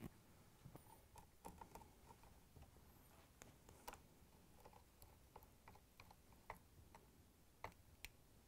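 Faint, irregular clicks and ticks of a Phillips screwdriver turning screws into the gear housing of a KitchenAid stand mixer.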